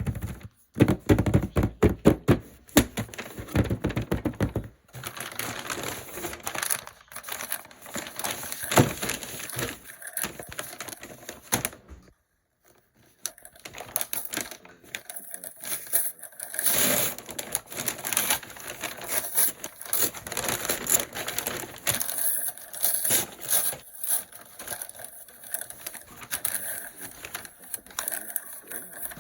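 Packaging being handled during an unboxing: crinkling paper and plastic wrap with quick clicks, taps and scrapes on a cardboard box. The sound is loudest and most rapid in the first few seconds and stops briefly about twelve seconds in.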